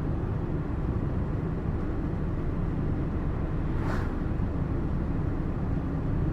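Steady low rumble of road and engine noise from the van driving along, with a brief louder whoosh about four seconds in.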